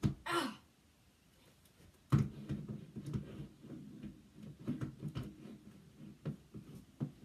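Handling noise as a small plastic weather radio is pressed and fitted against a wall while trying to hang it: a click and a brief scrape at the start, then a sharp knock about two seconds in followed by irregular small knocks, taps and rubbing.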